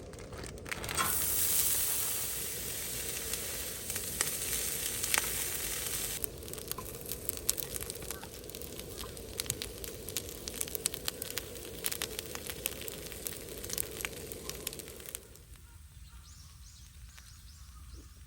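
Food sizzling on a charcoal-fired shichirin grill: a dense hiss for the first few seconds that thins into scattered pops and spits, then dies down near the end.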